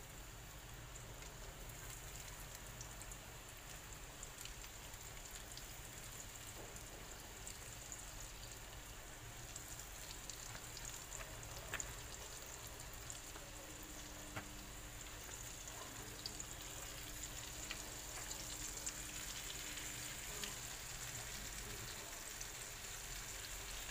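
Flour-coated chicken pieces deep-frying in hot oil in a pan: a steady crackling sizzle with small pops, getting gradually a little louder.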